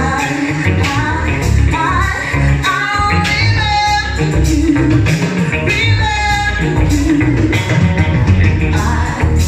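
Live band playing: heavy bass and drums with guitar and regular cymbal strokes, and a singer holding long wavering notes around three seconds in and again near six seconds.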